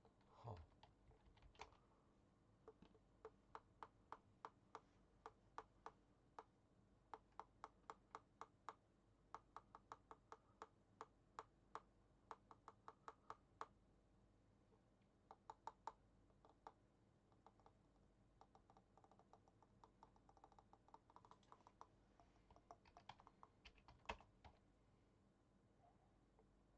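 Computer keyboard being typed on: a quiet run of key clicks at about two to three a second, growing sparser in the second half.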